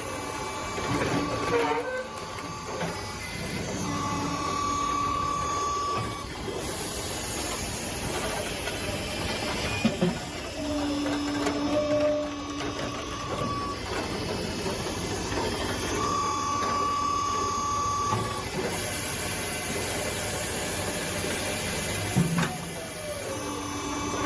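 Wood-processing machinery running steadily, with on-and-off steady whines lasting a second or two and a few sharp knocks. A falling whine comes near the start and again near the end.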